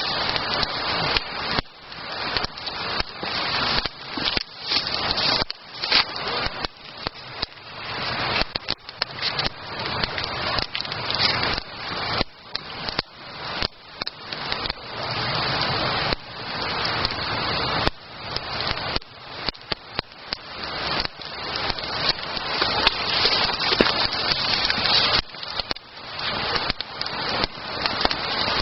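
Wood campfire burning, with constant crackling and frequent sharp pops over a dense hiss.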